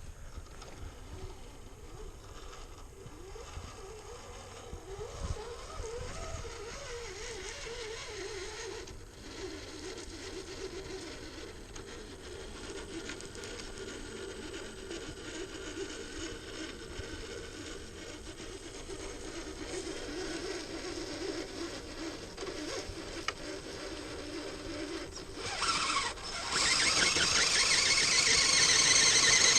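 Mechanical clicking, scraping and ratcheting of RC crawler parts being worked on. Near the end, a much louder steady whirring starts, like the truck's electric drivetrain and gears spinning.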